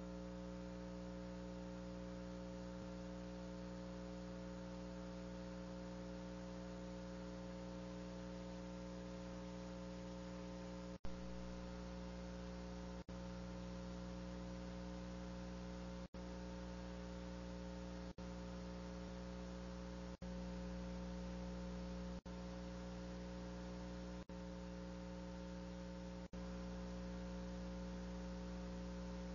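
Steady, low-level electrical hum on the audio feed, made of several steady pitches over a faint hiss. From about eleven seconds in it drops out for an instant about every two seconds, with a small click at the first dropout.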